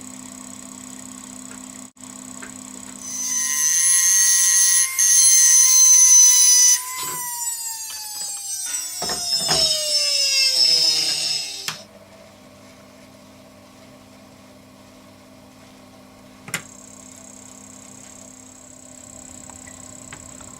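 A high-speed spinning machine whines loudly for a few seconds, then spins down, its pitch falling steadily over about five seconds until it stops. A single sharp click follows a few seconds later.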